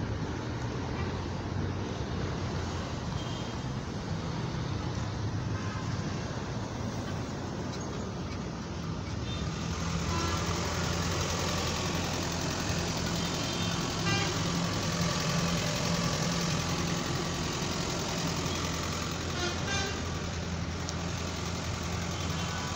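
Road traffic: a steady rumble of passing cars and trucks, with a few short car-horn toots in the second half.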